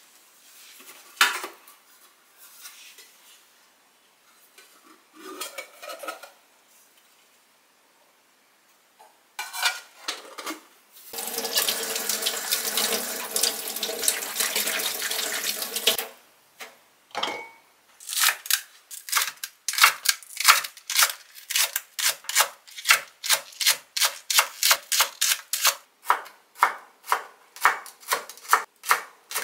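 A few light kitchen clinks and handling sounds, then a tap runs for about five seconds while green onions are rinsed by hand under the stream. After that, a kitchen knife chops steadily on a wooden cutting board, about two to three strokes a second, through green onions and green chili peppers.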